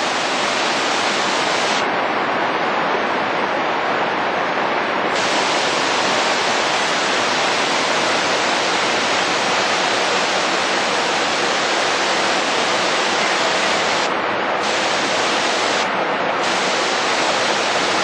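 Waterfall in flood after heavy rain: a loud, steady rush of whitewater pouring over the falls.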